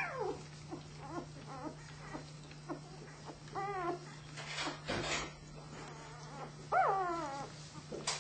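Newborn flat-coated retriever puppies whimpering and squeaking. A falling squeal at the start, short squeaks, a wavering cry midway and a louder falling whine near the end, over a steady low hum.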